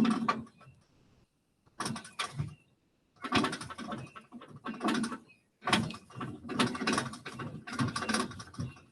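Truck jack being worked to lift the truck, making metallic clicking and creaking in several bursts of rapid clicks separated by short pauses.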